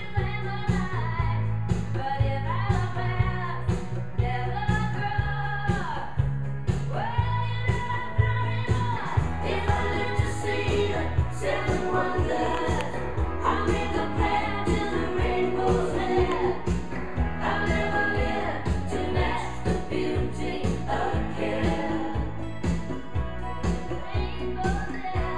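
Music: a song with sung vocals over a steady beat and strong bass.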